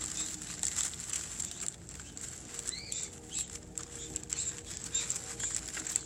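Crinkle-paper shred and a woven bamboo ball rustling and crackling as hands handle them, with many small irregular clicks.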